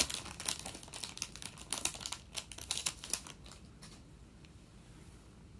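Foil wrapper of an Upper Deck hockey card pack crinkling as it is opened. The crinkling is a dense run of crackles that dies away after about three and a half seconds.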